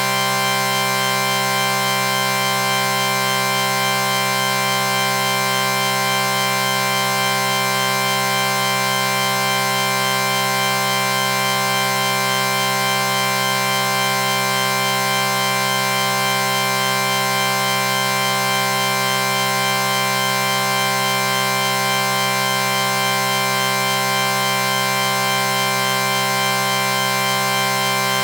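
An electronic chord sound effect held without a break: several steady tones sounding together, unchanging in pitch and loudness.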